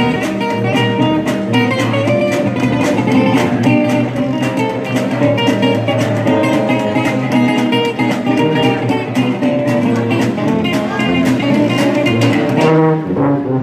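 Traditional New Orleans jazz band playing live: strummed guitar and banjo chords keep a steady beat over a sousaphone bass line, with the band's other instruments.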